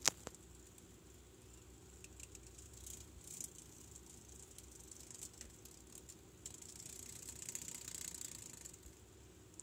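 Faint dry rustling and crackling, with a sharp click right at the start and a longer stretch of rustling in the second half.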